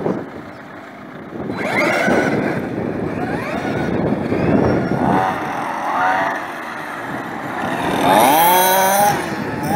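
Radio-controlled model cars driving, their motors revving up and down in pitch several times, loudest near the end.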